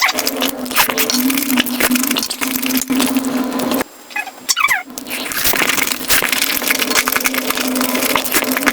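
Chewing and crunching sounds of a person eating, played back at about five times normal speed: a dense stream of crackles and clicks over a steady hum. It breaks off briefly about four seconds in, then resumes.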